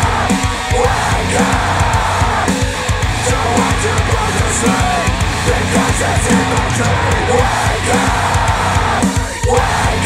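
Loud heavy rock music with a driving drum beat, played back through Focal Chora 806 bookshelf speakers powered by an NAD C700 integrated amplifier and picked up by microphones in the room.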